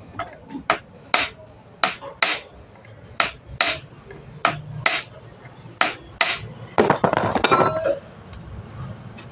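Hammer striking metal: about a dozen sharp strikes, often in pairs, then a quick flurry of knocks with a ringing clink about seven seconds in.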